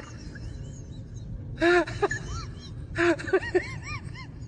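A young boy's high-pitched whimpering cries in two short bursts, about a second and a half apart, over a steady low rumble.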